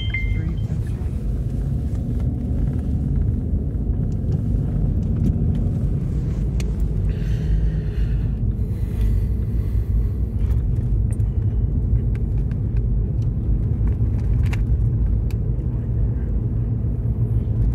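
Steady low rumble of a car's engine and tyres, heard from inside the cabin while driving on a snow-covered road.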